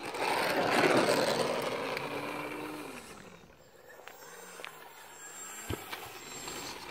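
Small electric RC plane's Racerstar BR2212 1400KV brushless motor and propeller as the plane rolls on a road: a rushing noise, loudest about a second in, then the motor's whine dropping in pitch as it throttles down. It is followed by a brief rising and falling whir and a single sharp tick.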